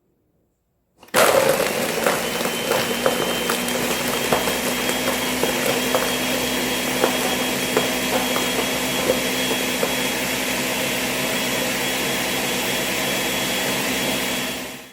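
Countertop blender starting abruptly about a second in and running at a steady speed with a high whine, blending a smoothie of almond milk, strawberries and ice cubes. Ice chunks crack and knock against the jar, the clicks thinning out as the ice is crushed, and the motor stops near the end.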